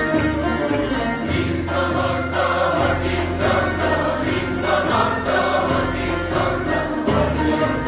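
A Turkish folk music choir performing with musical accompaniment, over a steady low sustained tone and a busy melody line.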